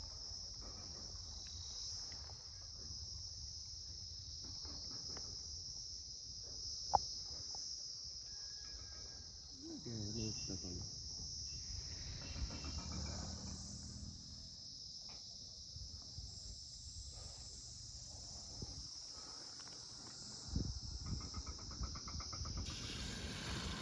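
Steady high-pitched trilling chorus of insects, continuous throughout, with one sharp click about seven seconds in.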